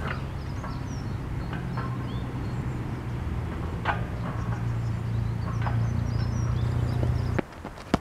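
Steady low drone of a helicopter passing overhead, cutting off suddenly near the end, with small birds chirping and a few light knocks.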